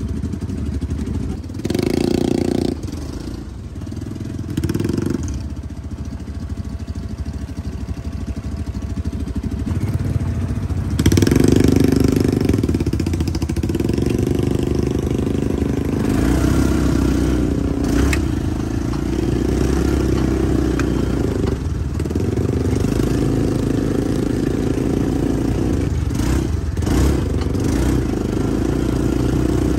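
The engine of a side-by-side off-road vehicle (UTV) running as it drives along a rough gravel track, with rattling and clatter from the ride. The engine gets louder and revs harder about eleven seconds in.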